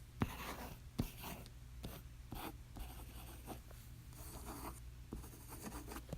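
Pencil writing on paper: scratchy strokes in short bursts, with a few sharp taps of the pencil point landing on the page.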